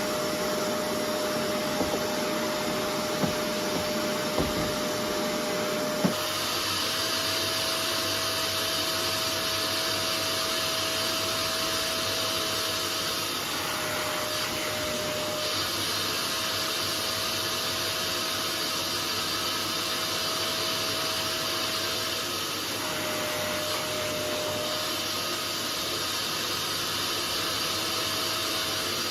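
A vacuum-type upholstery cleaning machine runs steadily with a motor whine. There are a few small clicks and a sharp knock about six seconds in. A hiss comes and goes as it works over the chair.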